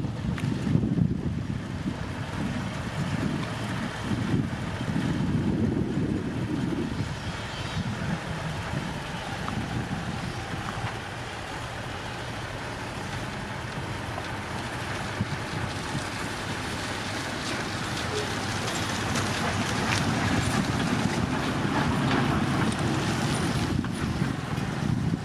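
Heavy earthmoving machinery running and working, a low engine rumble that swells and eases, loudest in the first few seconds and again near the end.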